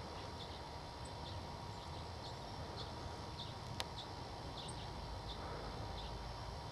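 A small songbird giving short, high call notes that repeat steadily about every half second, over a steady low background hum. There is one sharp click about four seconds in.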